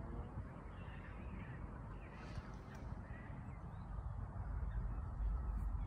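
Outdoor ambience: a low, uneven rumble of wind on the microphone, with faint, scattered calls of distant birds, possibly crows. The rumble grows a little louder near the end.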